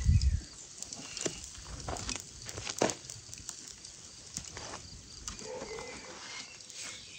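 Wire mesh grill basket holding a large whole roasted fish, giving scattered light clicks and rustles as it is lifted and turned by hand.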